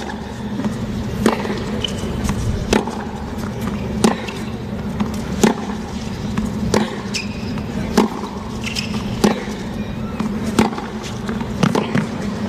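Tennis rally: a ball struck back and forth by rackets, one sharp hit about every 1.3 seconds as the two players trade groundstrokes from the baseline.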